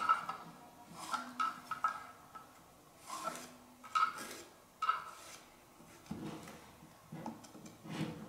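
Sharp little clicks and light wooden clacks as a pallet brush, a thin stick faced with fine sandpaper, is worked against an organ's swell pallets to clean off debris. Six or so come in the first five seconds, then a few duller knocks near the end.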